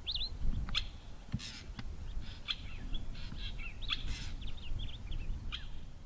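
African goshawk calling: a run of short, sharp, high notes, some quickly slurred up or down in pitch, repeated at irregular intervals, over a low background rumble.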